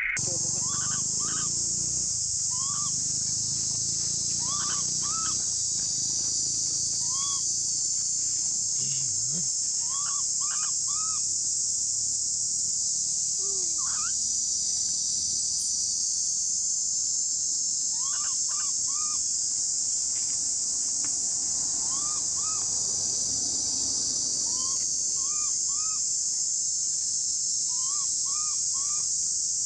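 Steady high-pitched insect drone, typical of a cicada chorus in tropical forest, with short chirping calls repeated in twos and threes throughout.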